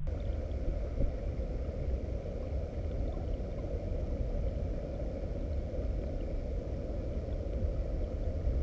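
Fast river current heard underwater through a GoPro's housing: a steady low rumble and rushing with no distinct events.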